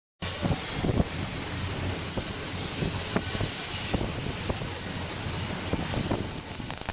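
Robotic cold metal transfer (CMT) MIG welding arc from a servo-driven welding gun: a steady hiss full of irregular crackles and pops, over a low electrical hum.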